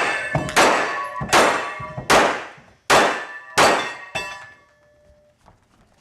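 A rapid string of handgun shots in an IPSC stage, about six shots roughly 0.7 s apart, each leaving a ringing tail. The shots stop a little past four seconds in.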